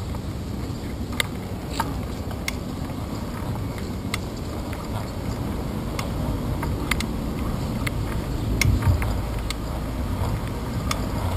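Steady wind and road rumble from a bicycle in motion, picked up by a handlebar-mounted GoPro Hero 2. Sharp clicks and rattles come at irregular moments throughout.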